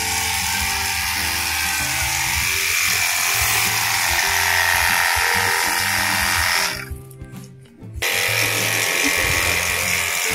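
A 24V cordless pressure washer runs with a steady hiss of spray and motor whine, breaking off for about a second past the middle, under background music with a stepping bass line.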